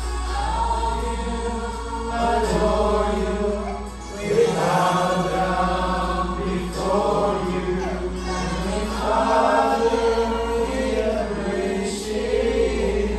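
A group of men singing a song together in chorus, holding long notes.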